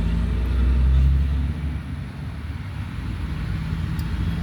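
An engine running steadily nearby with a low rumble, swelling a little about a second in.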